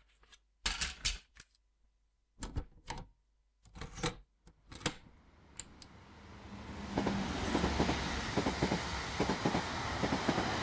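A few separate clicks and knocks, then a train's running noise fades in about six seconds in: a steady rush with wheel knocks over the rails.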